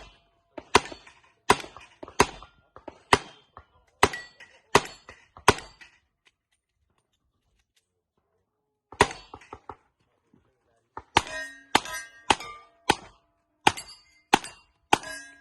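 Revolver shots fired in quick succession at steel plates, each shot followed by the clang and ringing of the hit steel; about eight shots in the first six seconds, a pause of about three seconds, then another run of about eight.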